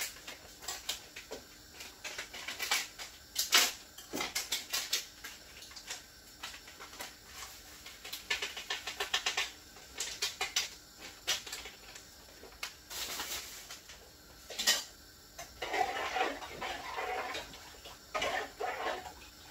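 Crinkling and crackling of a packet of soup mix being opened and shaken out over a cooking pot, in several clusters of sharp crackles, turning to a softer rustle near the end.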